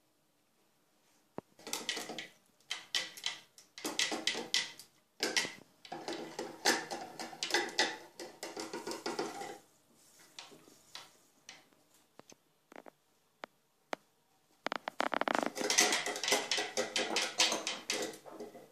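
Wire balloon whisk beating yeast into milk in a plastic measuring jug, its tines rattling rapidly against the jug's sides in two long bouts, with a quieter stretch of scattered clicks in the middle.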